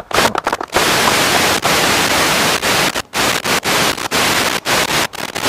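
Loud, even static-like hiss that cuts out abruptly many times for a split second.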